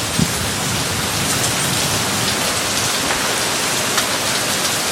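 Torrential downpour driven by gusting wind: heavy rain pouring down in a dense, steady hiss, the rain blowing almost horizontal.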